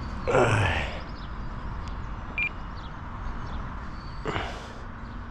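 A man's loud sigh about half a second in, then a short electronic beep midway and another breath near the end, over steady background noise.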